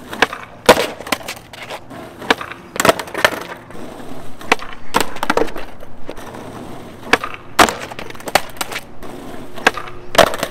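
Skateboard popping and clattering on asphalt during nollie varial kickflip attempts: about a dozen sharp cracks and clacks of the deck and wheels hitting the ground, spread irregularly.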